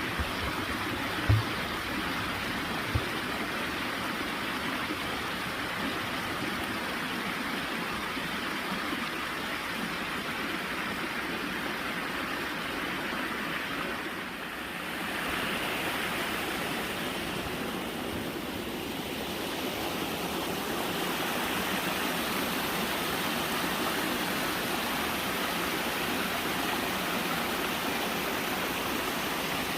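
Running water: a steady rush of water falling or flowing over stones, like a small waterfall or stream. There are two sharp clicks about a second and three seconds in.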